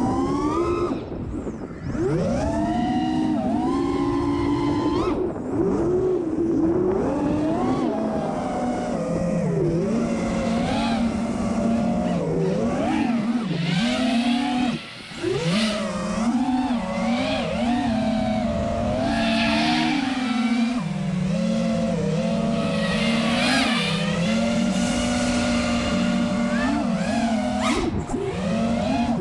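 The brushless motors and propellers of an FPV quadcopter in flight, fitted with iFlight Xing 2306 2450kv motors. Their buzzing whine rises and falls in pitch with the throttle, and it dips briefly about a second and a half in and again about halfway through.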